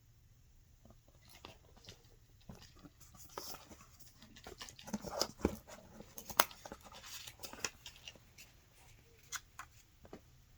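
Paper and card being handled: irregular rustling, crinkling and light taps, thickest through the middle and thinning out near the end.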